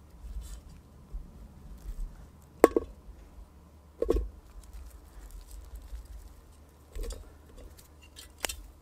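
Chunks of raw meat and potato being put into a stainless steel camping pot: four short knocks with a brief ring, the loudest about two and a half seconds in, with soft handling rustle between.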